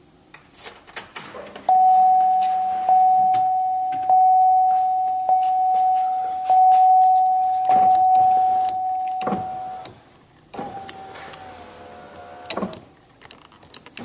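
Buick Rendezvous warning chime dinging about once every 1.2 seconds for roughly eight seconds, each ding fading before the next. It is followed by a power window motor running for about two seconds, with switch clicks before and after.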